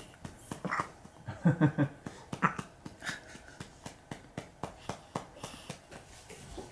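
Rhythmic soft patting on a newborn baby's back, about three pats a second, to bring up a burp. A few short throaty sounds from the baby break in, the loudest about one and a half seconds in.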